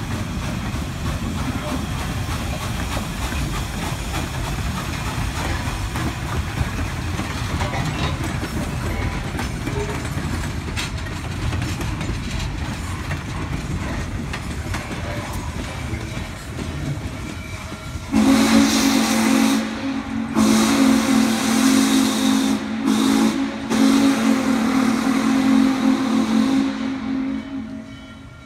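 Norfolk and Western J-class steam locomotive 611 running with a steady rumble and hiss. About 18 seconds in, its steam whistle blows four blasts, long, long, short, long: the grade-crossing signal.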